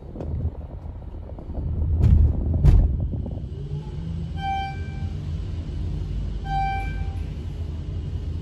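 A short electronic beep sounds about every two seconds over a steady low machine hum. Before the beeps begin, two sharp knocks come about two and three seconds in, over a low rumble.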